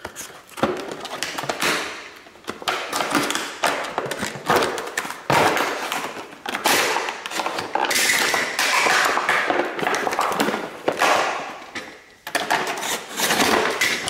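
Stiff plastic blister packaging being pried and pulled open by hand: irregular crackling of plastic and cardboard, with knocks as it is handled.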